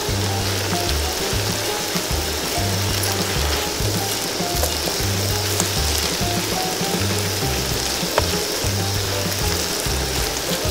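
Quail pieces deep-frying in a pan of hot oil, a steady sizzle, mixed with background music that has a repeating bass line.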